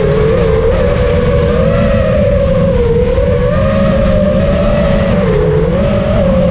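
FPV racing quadcopter's motors and propellers whining, the pitch wavering up and down as the throttle changes, over a steady rush of wind.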